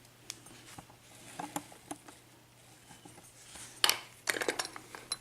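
Small metallic clicks and rattles of a Baldwin pin-tumbler lock being handled, with a louder run of clicks about four seconds in.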